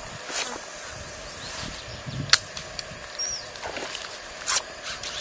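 Steady outdoor background with three sharp clicks spread a couple of seconds apart and a short high bird chirp about three seconds in.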